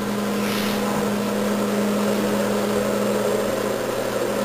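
Steady low hum over an even hiss, the constant drone of a small motor or room machinery such as a fan, with a short rustle about half a second in.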